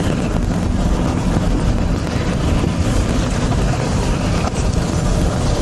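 Steady road and engine noise heard inside the cabin of a moving car.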